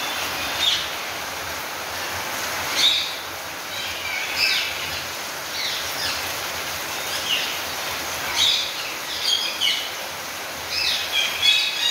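Ring-necked parakeets giving short, high-pitched calls every second or so, several in quick succession near the end, over a steady hiss of rain.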